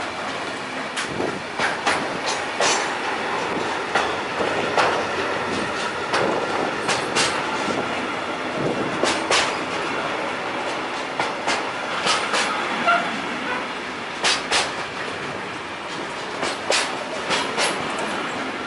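Intermodal freight train of pocket wagons loaded with lorry semitrailers rolling past close by. A steady rumble of steel wheels on rail is broken by sharp wheel clacks, often in quick pairs.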